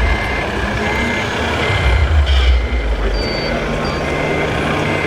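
Reversing beeper of an RC model truck's sound module, beeping evenly a little over once a second over busy background noise. A low rumble under it stops about halfway through, and a steady low hum takes over.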